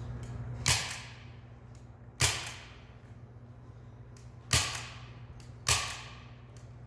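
Staple gun firing four times, driving staples through duct tape, each a sharp snap with the shots about one to two seconds apart.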